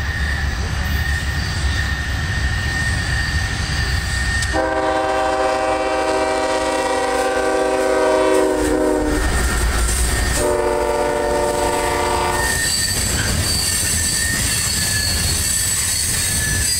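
CSX freight train led by GE ES44AH diesel locomotives passing close by. Low engine rumble, then the locomotive's air horn sounds one long blast and, about a second later, a shorter one. After the horn the freight cars clatter past with high-pitched wheel squeal on the sharp curve.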